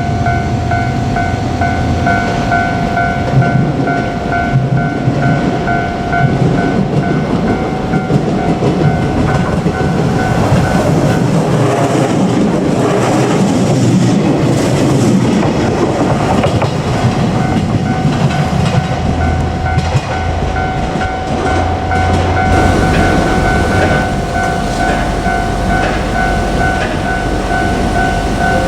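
Japanese level-crossing warning bell ringing while a JR Kyushu 817-series electric train passes over the crossing, its wheels clacking over the rail joints. The train noise swells about halfway through and drowns the bell for several seconds before the bell is heard again near the end.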